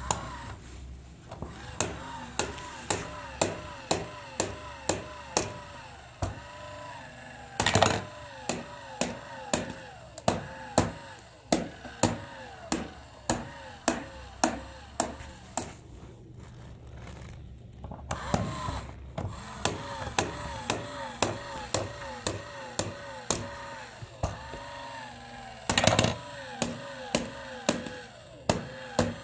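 Football coin-bank toy's kicker mechanism cycling over and over: a sharp click about twice a second, each with a rising and falling whine from the small motor. There is a louder clatter about a quarter of the way in and again near the end.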